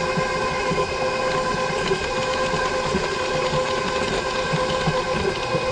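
Electric mixer running steadily with a motor hum, mixing gingerbread cookie mix into creamed butter.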